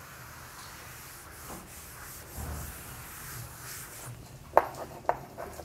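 A blackboard duster rubbing across a chalkboard, a steady dry swishing as chalk writing is wiped off. A few sharp taps come near the end.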